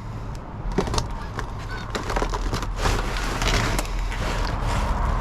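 Food packages and plastic bags being rummaged through in a dumpster: crinkling plastic with several scattered knocks as items are handled.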